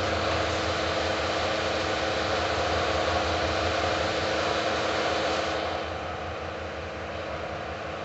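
Mori Seiki MS-1250G engine lathe running, its headstock gears and spindle turning with a steady whir and gear whine. About six seconds in, the sound drops a little and turns duller while a lever on the carriage is worked.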